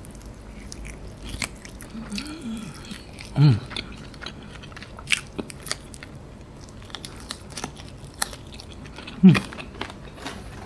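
Close-miked eating of crispy fried chicken: biting, chewing and many wet mouth clicks. Two short falling voice sounds, about three and a half and nine seconds in, are the loudest moments.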